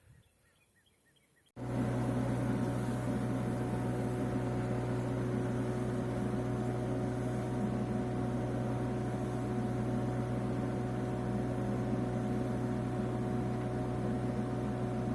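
Bobcat E85 mini excavator's diesel engine running at a steady speed, a constant low hum with a steady whine over it. It starts abruptly about a second and a half in, with no change in pitch or load after that.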